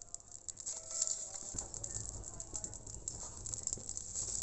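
Dry straw burning in a clay chulha (earthen cooking stove), crackling with many small, quick pops over a soft hiss. A low rumble joins about a second and a half in.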